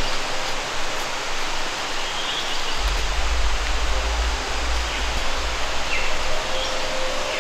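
Tropical rainforest ambience: a steady, dense hiss with a few short high chirps. A low rumble comes in about three seconds in and stops about six seconds in.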